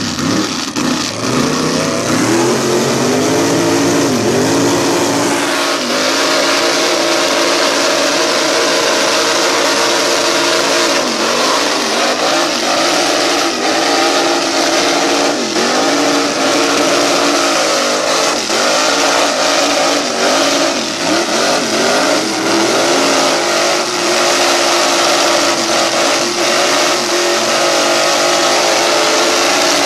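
Mega mud truck doing a burnout: the engine is held at high revs, with repeated brief dips and climbs in pitch, over a steady hiss of spinning tyres.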